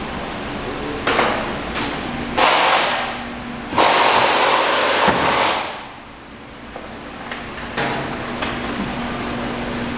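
Workshop background noise: three short bursts of hissing noise, the longest about two seconds and the loudest about four seconds in, then a steady low hum.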